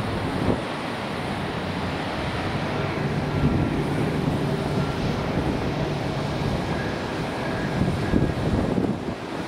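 Jet airliner engines running at taxi power: a steady rush with a faint engine whine through the middle, mixed with wind on the microphone.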